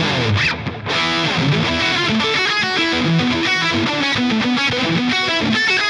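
Electric guitar played through a Line 6 HX Stomp multi-effects preset: a short sliding note with a brief break about half a second in, then a fast run of single notes.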